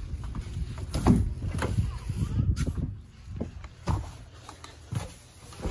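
Rumble on the microphone and scattered light knocks and clicks as someone climbs into a car's driver's seat and handles the phone. The rumble fades after about two and a half seconds, leaving separate small knocks.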